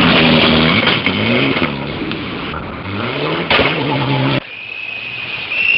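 Rally car engine revving hard at close range, its pitch climbing and dropping back with several gear changes. About four seconds in the sound drops off sharply to a fainter engine noise, and another car's engine rises near the end.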